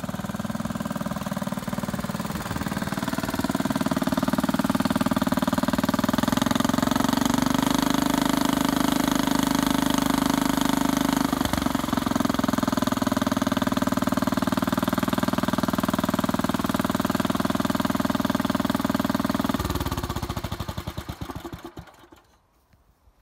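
1962 Bolens Ride-a-matic garden tractor engine running through its new custom exhaust and muffler, getting louder a few seconds in and then running steadily. Near the end it is shut off and runs down to a stop.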